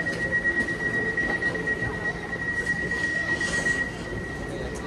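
Train in a station with a steady high-pitched squeal over a low, constant rumble; the squeal fades about four seconds in.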